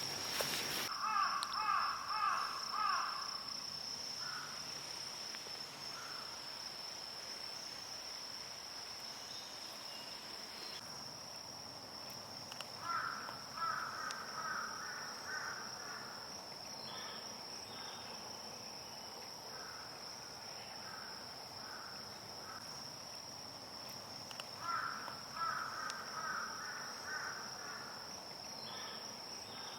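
Forest ambience: a steady high-pitched insect drone, with a bird calling three times in quick runs of six to eight notes, about twelve seconds apart.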